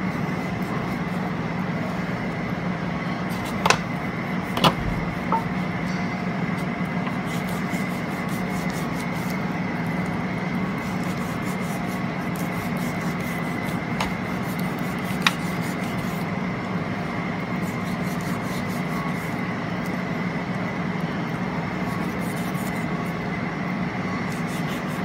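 A knife cutting through raw pork shoulder in a disposable aluminium foil pan, with four sharp clicks: two about four and five seconds in, and two around fourteen and fifteen seconds. A steady hum runs underneath throughout and is the loudest part.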